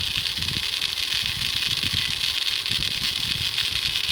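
JJRC H47 Elfie mini drone's small motors spinning its props through plastic gears on a bench test, a steady high-pitched whine with irregular low knocks underneath. This is the check that a freshly soldered replacement motor is wired correctly and turning its gear.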